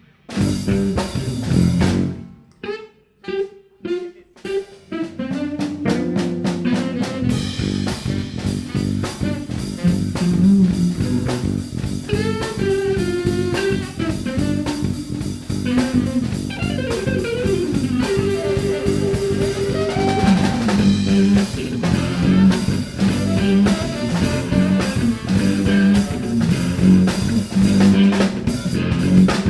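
Jazz quartet playing live, led by drum kit and electric guitar. A few sharp stop-time hits with brief silences come in the first few seconds, then the full band plays on.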